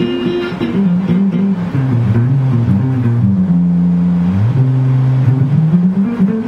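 Ibanez Artcore AF75 hollow-body archtop guitar played as a line of picked notes that steps down into the low strings, holds low notes around the middle, then climbs back up near the end.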